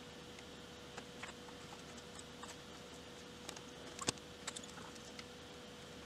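Hand soldering of IC socket pins on a circuit board: scattered light clicks and taps as the soldering iron and solder work along the pins, the sharpest about four seconds in, over a faint steady hum.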